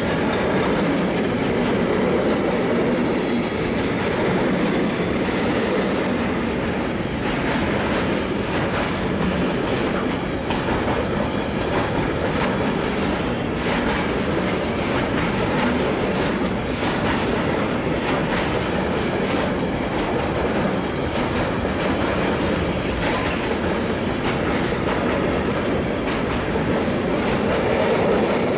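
Freight train's container wagons rolling past close by: a steady rumble of steel wheels on the rails, with clicks as the wheels cross rail joints.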